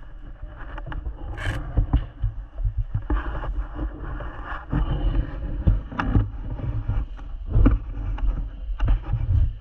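Movement noise on a body-worn camera microphone: rustling and scraping of clothing and gear, with a rumbling low end and scattered knocks and clicks, and a short hiss about one and a half seconds in.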